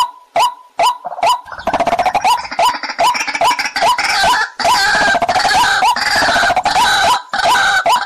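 White-breasted waterhens calling: a fast run of short, repeated hooked notes, about two and a half a second, which about a second and a half in becomes a dense, harsh chorus of overlapping calls.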